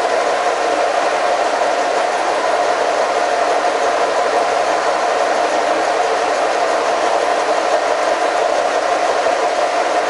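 Horizontal boring mill running steadily with a whir that holds one strong mid-pitched tone, its brazed-carbide boring bar taking a 1/8-inch roughing cut in a welded connecting-rod bore at 335 RPM.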